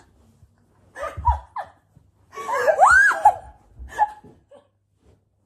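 A woman laughing while her feet are tickled, in several short bursts with quiet gaps between. The loudest burst, about halfway through, is a high squeal of laughter that rises and falls in pitch.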